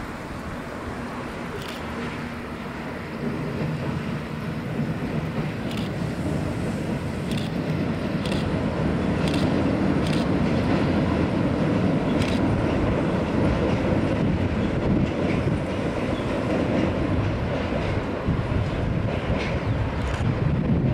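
Alstom X'Trapolis Modular electric multiple-unit train rolling across a steel truss railway bridge: a steady rumble that grows louder a few seconds in, with scattered clicks of the wheels over rail joints.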